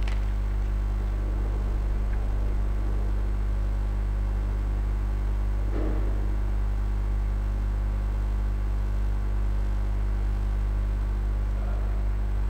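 Steady electrical mains hum, a low 50 Hz drone with its overtones, at an even level throughout.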